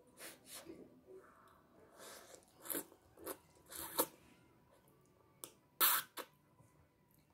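A child slurping instant noodles off chopsticks: a string of short, hissy slurps and breaths, the loudest about six seconds in.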